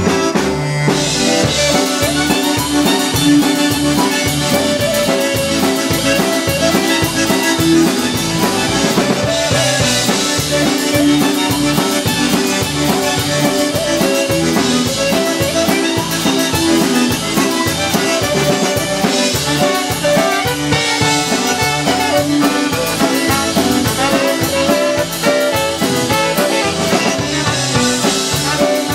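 Live polka band playing a ballroom polka: trumpet and clarinet carry the melody over guitar and drum kit keeping a steady beat.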